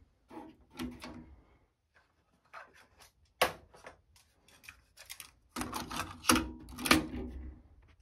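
Yamaha KX-150 cassette deck's door and eject mechanism being worked by hand: the door clicks open, a cassette is slotted in and the door is pushed shut. A run of plastic clicks and clatter, with the loudest snaps in the second half.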